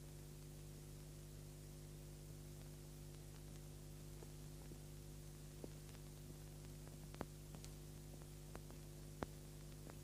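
Near silence: a steady electrical hum with a few faint clicks in the second half.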